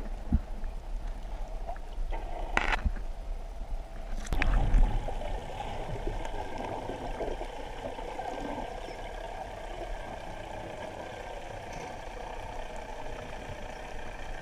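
Muffled underwater sound through a camera's waterproof housing: a few knocks and bumps in the first five seconds, the loudest about four and a half seconds in, then a steady low drone of a boat engine carried through the water.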